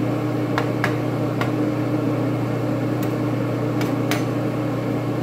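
A steady mechanical hum from a kitchen appliance, with about six sharp clinks of a metal spoon against a frying pan as the food in it is stirred.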